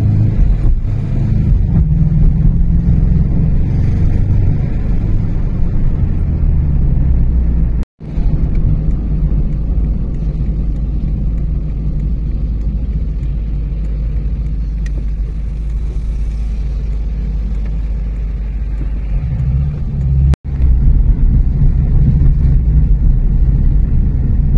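Car driving along city streets, heard from inside the cabin: steady low engine and road noise. It breaks off abruptly for an instant about 8 seconds in and again about 20 seconds in, where clips are joined.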